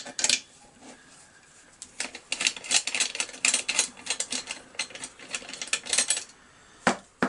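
Rapid, irregular metallic clicking of a hand-held 8 mm socket driver being worked back and forth on the muffler nuts of a chainsaw as they are unscrewed.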